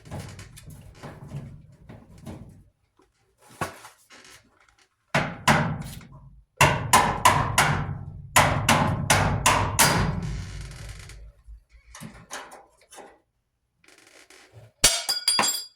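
Hand tools knocking and clanking on a clothes dryer's sheet-metal cabinet while it is taken apart. A run of about a dozen sharp strikes comes in the middle, two to three a second, then a brief clatter near the end.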